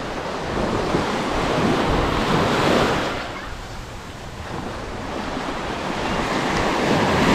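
Small surf breaking and washing up the shore in two swells, loudest about two and a half seconds in and again near the end, with wind rumbling on the microphone.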